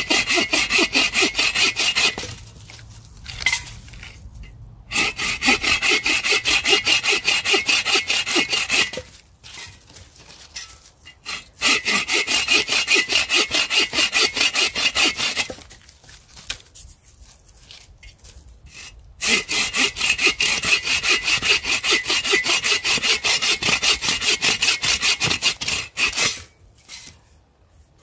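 Hand saw cutting through a dry, lichen-covered dead branch with quick back-and-forth strokes, in four bouts of sawing with short pauses between them.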